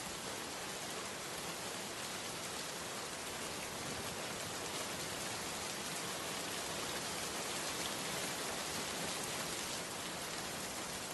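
Steady, even water noise with no distinct crashes or breaks, like heavy rain or a rushing flood.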